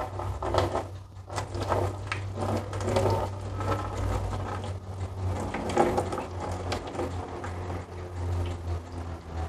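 Light, irregular kitchen clatter and knocks over a steady low hum.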